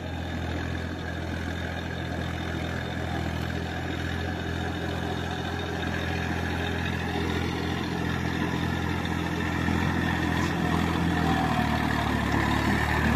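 Massey Ferguson 245 DI tractor's three-cylinder diesel engine running steadily as it works a flooded paddy on cage wheels, growing gradually louder as it approaches.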